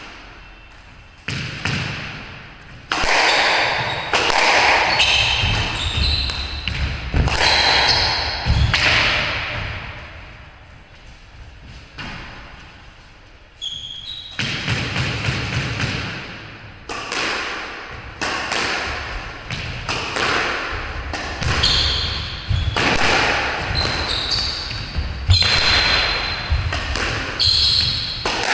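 Squash rally: the ball being struck by racquets and smacking off the court walls in quick, echoing hits, with sneakers squeaking on the wooden floor. Two rallies, with a lull of a few seconds around the middle.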